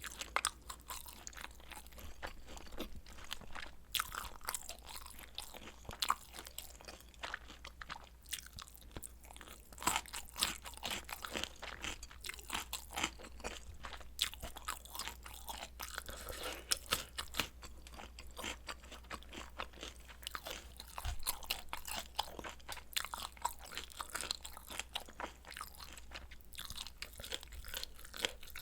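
A person chewing mouthfuls of spicy noodles and kielbasa sausage close to the microphone: a continuous run of wet clicks, smacks and crunches, several a second, with no pause.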